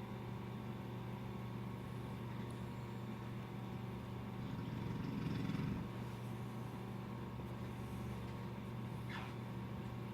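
A man snoring: one rough snore swells up about halfway through, over a steady low electrical hum.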